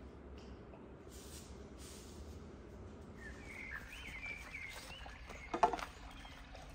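Small birds chirping for a couple of seconds over the faint trickle of a small garden fountain. About five and a half seconds in, a sharp knock as a plate with a cabbage is set down on the fountain's stone rim.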